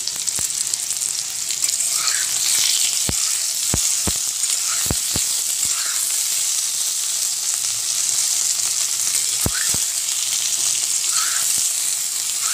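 Smashed small potatoes sizzling in hot oil in a metal karahi over low heat, with a steady hiss. A spatula stirring them knocks and scrapes against the pan, giving several sharp taps between about three and ten seconds in.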